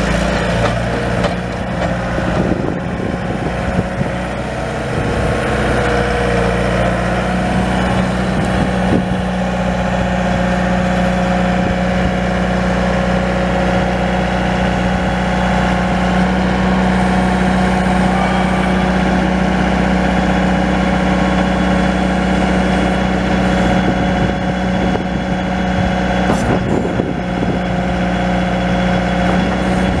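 Kubota four-cylinder diesel engine of a Bobcat S300 skid steer running steadily, a little louder from about six seconds in.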